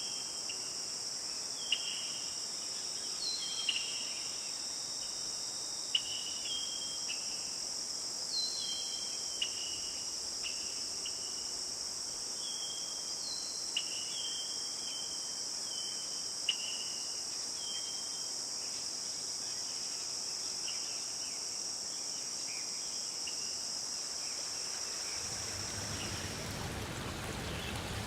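Steady, high-pitched chorus of insects, crickets by the sound of it, with short bird chirps over it in the first half. Near the end the insect chorus stops and the rushing sound of a stream takes over.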